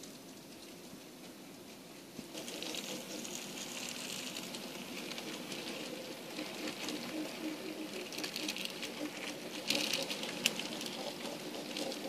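N scale model freight cars rolling along the track: a fast, even patter of small wheel clicks over the rails. It grows louder about two seconds in as the cars come close and is loudest about ten seconds in.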